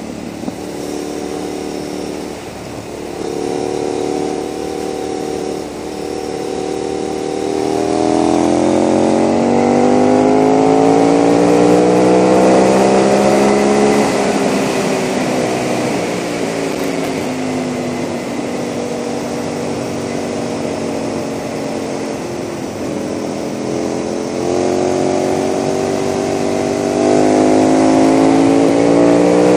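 KTM 990 SMR supermoto's V-twin through its Leo Vince exhaust under way at road speed. About 8 seconds in it pulls up through the revs for some six seconds, then rolls off to a steady cruise, and it rises again near the end. Wind rushes past the bike throughout.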